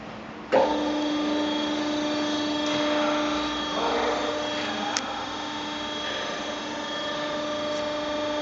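A Promau Davi MCB 3020 hydraulic four-roll plate bending machine starts up about half a second in and runs with a steady hum of several pitches. A single click comes about five seconds in.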